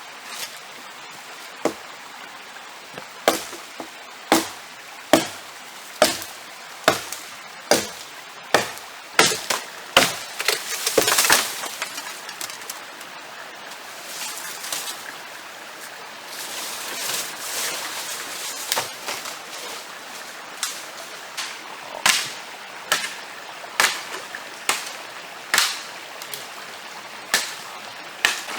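Repeated chopping strikes on wood, about one a second, pausing for several seconds midway, over the steady rush of a stream.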